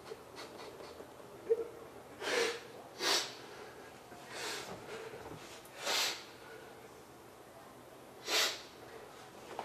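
A man sniffing and snorting hard through his nose five times, each a short rushing breath, a second or two apart.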